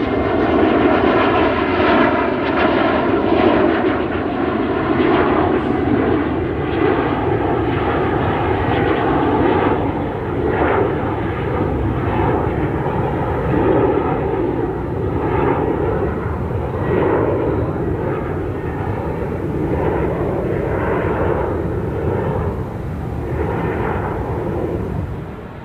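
Airplane engines running with a loud, steady noise that eases slightly over time and drops off sharply near the end.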